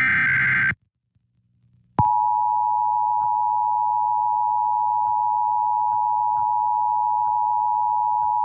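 The end of an Emergency Alert System SAME header data burst, a harsh buzzy screech lasting under a second, then about a second later the EAS attention signal comes on: a loud steady two-tone beep (853 and 960 Hz) with a slight regular pulsing where the two tones beat against each other.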